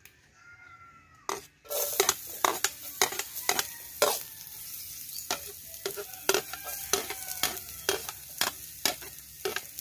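Chopped red onions sizzling in a stainless steel wok, with a metal ladle stirring and clinking against the pan about twice a second. The sizzle starts about a second and a half in.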